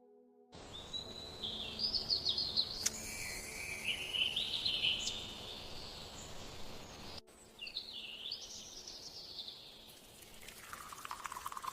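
Birds singing in warbling, sliding chirps over a steady background hiss, breaking off briefly about seven seconds in and resuming.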